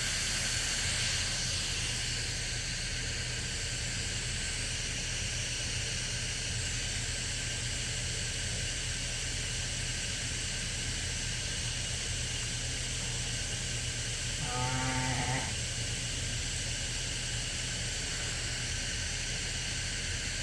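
Steady hiss and low hum of the barn, with a single sheep bleat about three-quarters of the way through.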